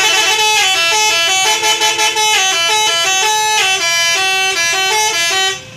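Truck's telolet horn, a multi-trumpet musical air horn, playing a fast tune of stepped notes for about five and a half seconds, then cutting off.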